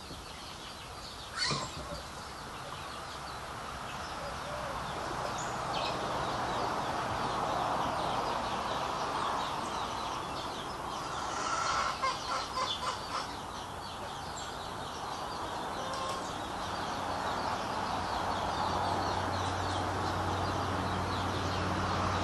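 Chickens clucking in the background, with a short run of louder calls about twelve seconds in. A single knock comes about a second and a half in.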